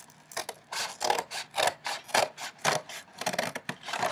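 Scissors cutting through cardboard in a series of short, crunchy snips, about two a second.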